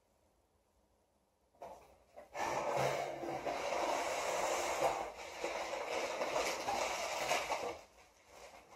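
Plastic bubble wrap and cardboard packaging crinkling and rustling as a package is unpacked, starting about two seconds in as a dense crackle of small clicks and dropping away near the end.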